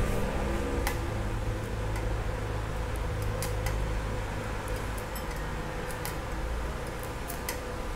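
A 2.5 mm stick-welding rod being scratched against steel on an inverter arc welder set to about 83 amps. It gives only scattered sharp crackles and clicks, with no steady arc, because the machine fails to melt the rod at that setting, which the welder takes as a sign that its amperage reading is not accurate. A steady low hum runs underneath.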